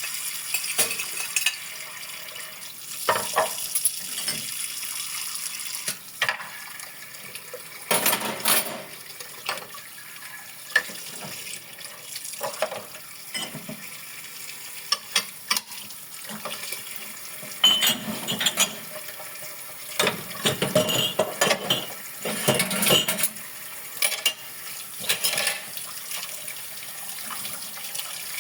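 Dishes and cutlery clinking and clattering as they are washed by hand under a running tap, a steady hiss of water under irregular knocks of crockery.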